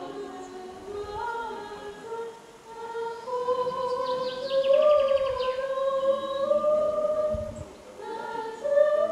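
A choir singing slowly in long, held notes that glide gently from one pitch to the next.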